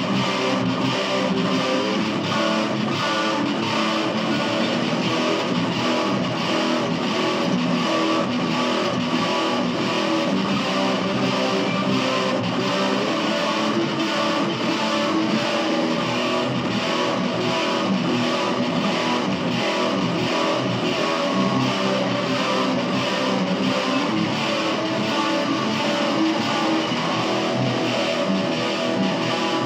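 Guitar music from a jam, played continuously with an even, steady rhythm of strokes.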